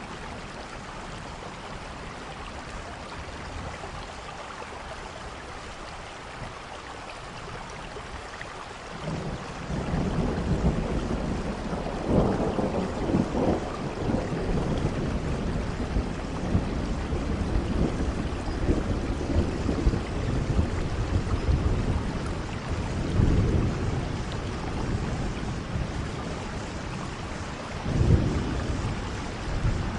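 Steady rain with thunder: low rolling rumbles begin about nine seconds in and swell several times, the loudest near the end.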